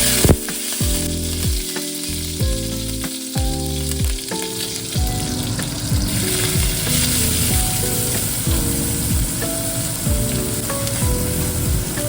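Food frying in a pan, a steady sizzle, heard under background music with held notes and a regular soft beat.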